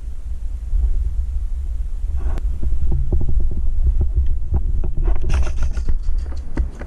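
Low rumbling thumps of a body-worn camera being jostled as the player moves, with irregular sharp clicks and knocks that start a couple of seconds in and come thick and fast in the last two seconds.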